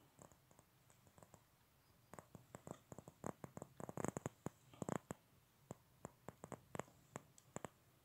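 Faint, irregular clicks and small taps, clustered most thickly in the middle and thinning out near the end: handling noise from the camera as it is moved around the model.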